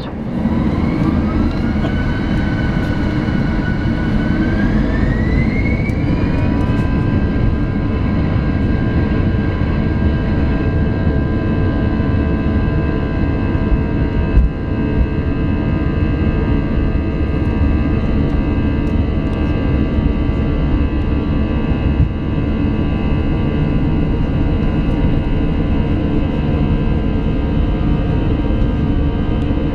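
Airbus A321's jet engines spooling up to takeoff thrust for the takeoff roll, heard from the cabin over the wing. A whine rises in two steps over the first six or seven seconds, then holds steady over a loud, even roar as the plane accelerates down the runway. There is a single knock about halfway through.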